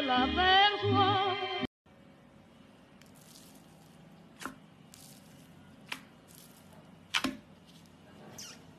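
A vibrato singing voice over music cuts off abruptly about a second and a half in. Then a hand squeezes and kneads foam-bead slime (floam) in a plastic tub: faint crunching and squishing with three sharp pops about 4.5, 6 and 7 seconds in.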